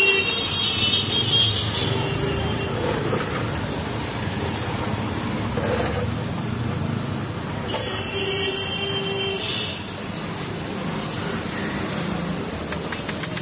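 Steady road traffic noise, with short vehicle horn toots about two seconds in and again around eight to nine seconds in.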